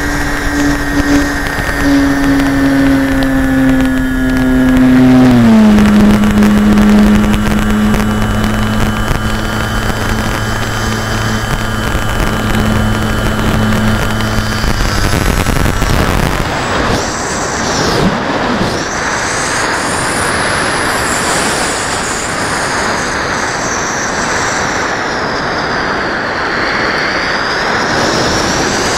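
Radio-controlled model airplane's motor and propeller heard from the plane's onboard camera as it flies, with air rushing past. A steady hum drops in pitch about five seconds in, then past the halfway mark gives way to a rushing noise with a high whine that rises and falls.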